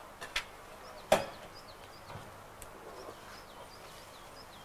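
A few sharp knocks or snaps, the loudest about a second in, over small birds chirping in woodland.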